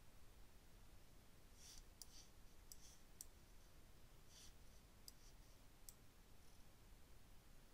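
Faint computer mouse button clicks, about nine of them at uneven intervals from a second and a half in to about six seconds in, over a low, steady background hum.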